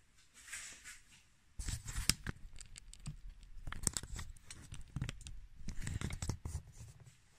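Handling noise from the recording camera being picked up and moved: a faint rustle, then from about a second and a half in a run of rubbing, scraping and knocking right on the microphone as the device is repositioned.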